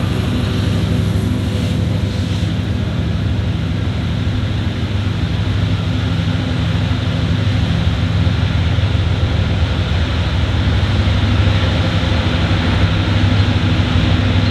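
Diesel locomotive engine running with a steady, loud low drone.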